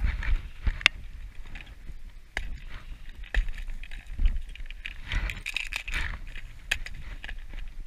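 A clear plastic lure box being handled, unlatched and opened, with scattered sharp plastic clicks and the hard-bodied lures rattling inside. Clothing rustles close by.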